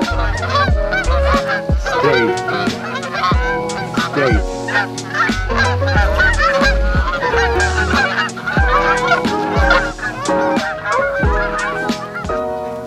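A flock of Canada geese honking continuously, many overlapping calls, as they fly in over decoys.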